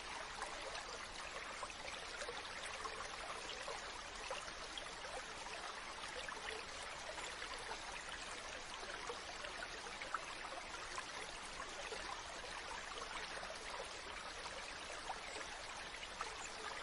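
Stream water running steadily, an even rush flecked with many small splashes and gurgles.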